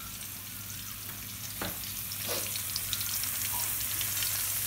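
Ginger-garlic paste sizzling and crackling in hot oil in a kadai, the sizzle slowly growing louder as the paste fries.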